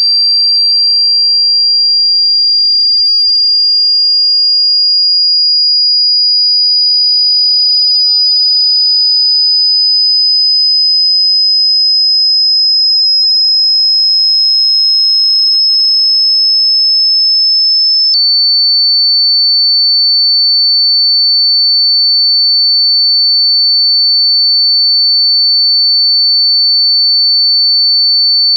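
A single high-pitched pure sine test tone for checking a phone speaker, gliding slowly upward in pitch for about eighteen seconds, then with a click dropping to a lower pitch that holds steady.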